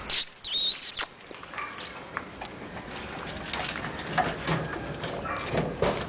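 A short, high-pitched animal cry about half a second in, followed by scattered light knocks and rustles.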